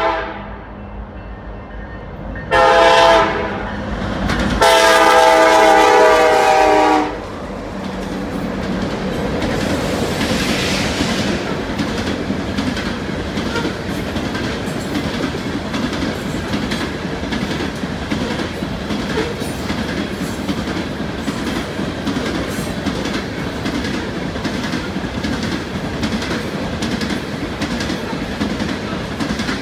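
Nathan K5LLA five-chime horn on BNSF SD70ACe 9212 sounding a short blast and then a long one about four and a half seconds in, the close of a grade-crossing signal. After that the coal train's hopper cars roll past with a steady rumble and rhythmic clicking of wheels over the rail joints.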